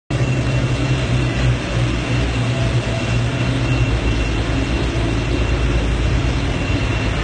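Steady loud low rumble and hiss with a faint high steady whine, a mechanical background noise with no speech.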